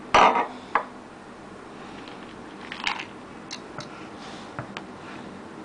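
Metal parts of a chrome basin mixer tap being handled: a loud short clatter at the start and a sharp click just after, then a few light metal clicks and taps as a tool is fitted into the tap body.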